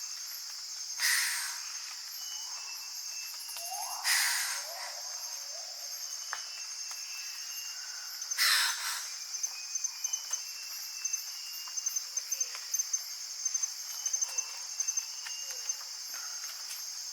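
Tropical forest ambience: a steady high-pitched chorus of crickets or cicadas, broken by three loud, harsh bird calls about 1, 4 and 8 seconds in. Faint short whistled bird notes and, in the second half, a quick run of sharp chips sound over it.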